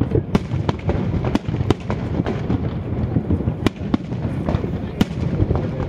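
Aerial fireworks bursting in a quick, irregular string of bangs over a continuous low rumble.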